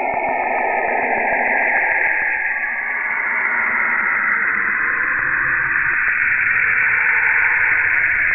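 Radio emissions picked up by a space probe and converted to sound: an even, radio-static hiss with a faint tone sliding down in pitch during the first few seconds.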